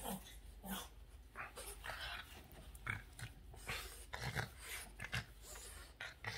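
Boston terrier making short, irregular snorts and huffs of breath while play-biting and mouthing a person's hand during rough play.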